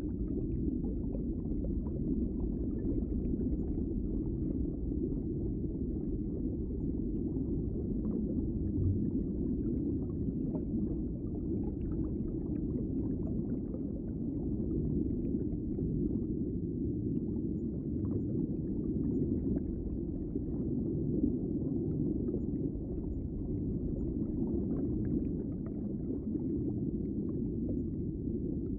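Underwater audio from a GoPro in its waterproof housing: a steady, muffled low rumble of pond water, with faint scattered ticks throughout.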